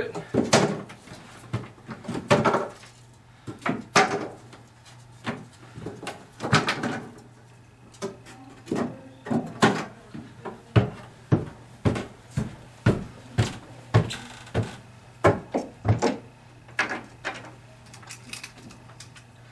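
Irregular wooden knocks and clatter as wooden tack strips are handled and set down on bare wooden stair treads, mixed with footsteps on the steps. The knocks come about one or two a second in the second half, over a faint steady hum.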